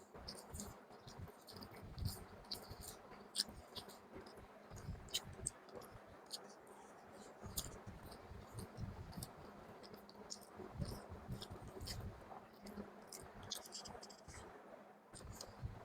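Close-up chewing and mouth sounds of someone eating chicken with gravy: a stream of small irregular clicks and smacks over soft low thuds.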